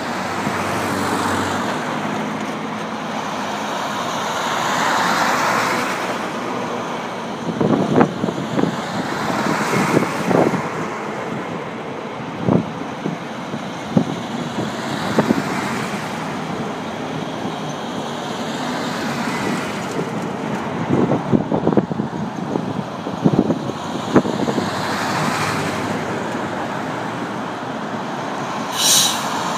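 Convoy of military KamAZ trucks driving past one after another, their diesel engines and tyre noise swelling and fading as each goes by. Scattered sharp knocks, and a brief high-pitched sound near the end.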